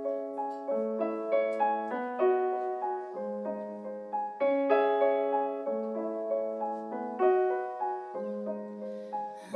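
Solo piano intro: a gently played pattern of broken chords, each struck note ringing and fading as the next comes in, several notes a second.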